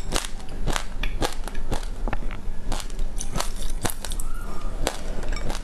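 Close-up crunching of a mouthful of mixed seeds being chewed: irregular sharp crunches, a few a second.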